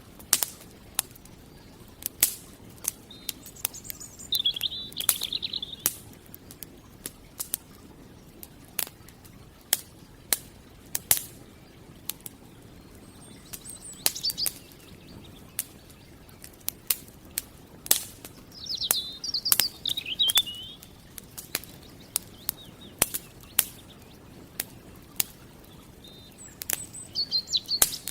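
Campfire crackling with frequent sharp pops, while a songbird sings four short high phrases, spaced several seconds apart.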